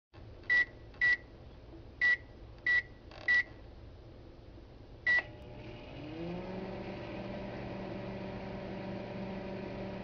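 Microwave oven keypad beeping: five short high beeps as buttons are pressed, then a sixth about two seconds later. The oven then starts up with a hum that rises in pitch and settles into a steady running drone.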